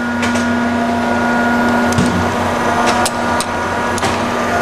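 Cincinnati Milacron 220-8 centerless grinder running: a steady hum carrying a constant low tone and a fainter, higher whine, with a few light clicks.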